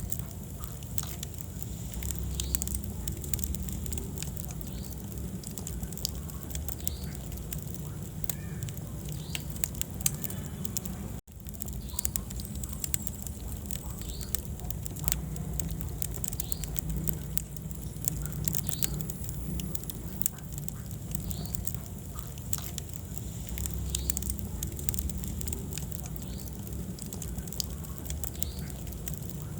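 Wood fire burning in a fireplace: frequent sharp crackles and pops over a low steady rumble of the flames. The sound cuts out for an instant about eleven seconds in.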